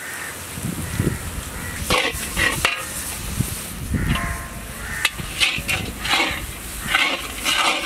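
Long metal spatula scraping and stirring around a large iron kadai, turning shallots, dry chilies and ground spices frying in oil. It comes as repeated scraping strokes over a sizzle.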